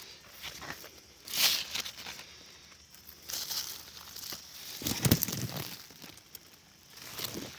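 Irregular rustling and crinkling noises, with the loudest crunch about five seconds in.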